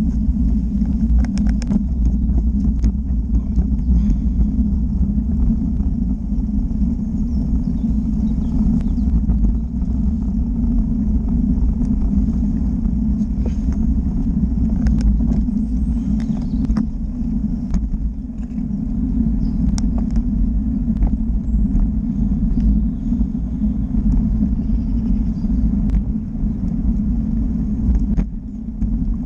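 Steady low rumble of a moving road vehicle, with road and wind noise, and scattered sharp clicks and knocks.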